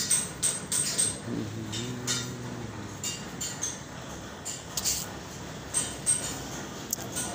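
Irregular light metallic clinks and taps, about two or three a second, from metal being worked in a tractor fabrication workshop. A brief low hum sounds about a second in and lasts a second and a half.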